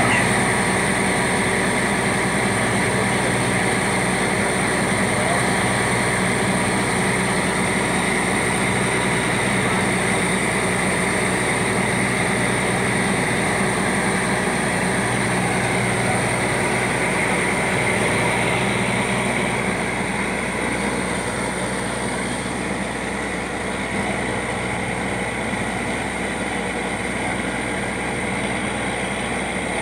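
Truck-mounted borewell drilling rig running steadily, its engine and machinery giving a constant drone with a high steady whine. It gets slightly quieter about two-thirds of the way through.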